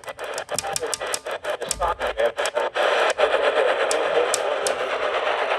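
Radio static: loud hiss chopped by rapid dropouts and clicks, about five or six a second, for the first three seconds, then steadier with a few more clicks. It sounds like a weak or interfered radio signal.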